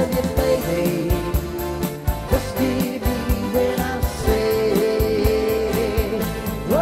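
Instrumental music from an electronic arrangement keyboard: a melody of held notes over a steady drum beat and bass, with no singing.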